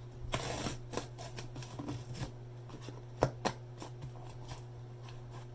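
Cardboard packaging of a Google Home Mini box being opened and handled by hand: a short sliding rustle near the start, then scattered clicks and taps as pieces are pulled apart, over a steady low hum.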